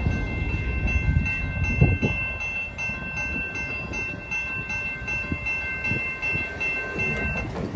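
Railroad grade-crossing warning bell ringing in a quick, even repeat while the crossing gates rise, stopping shortly before the end. Under it, the low rumble of a CSX freight train moving away eases after the first couple of seconds.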